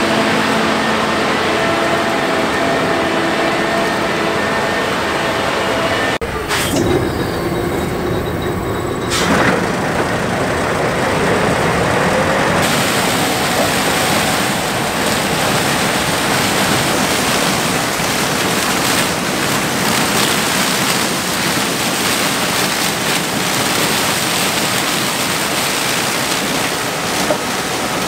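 Gleaner S97 combine running in corn, its engine and threshing machinery making a loud, steady drone. The sound changes abruptly three times in the first half.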